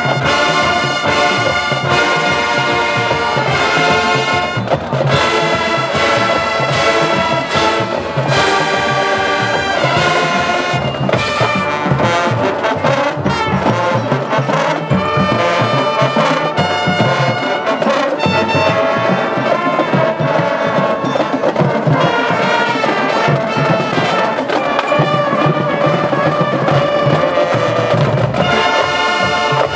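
Marching band playing: a full brass section in loud chords over marching percussion. Drum strokes drive the first dozen seconds, then the brass moves into longer held chords.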